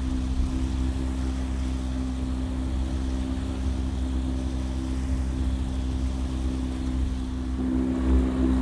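Sailboat's engine running steadily under way, a constant drone. It grows louder near the end, with more rushing noise added.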